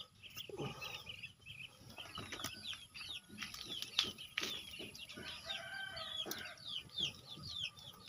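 Birds chirping busily: many short falling chirps, several a second, with a lower pitched call near the middle. Light clicks and scrapes of fingers picking worms off wet gravel.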